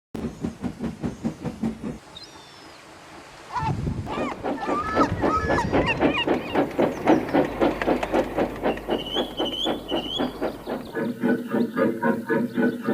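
Steam locomotive running: rhythmic chuffing with steam hiss and rail clatter. It drops back briefly, then grows louder about three and a half seconds in.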